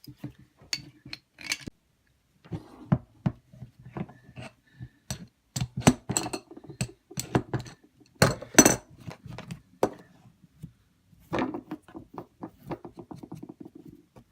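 Metal tools clinking, knocking and scraping on a stainless steel quick-release hose connector as the old coupling is worked off the clamped pressure-washer hose, ending in a run of quick clicks.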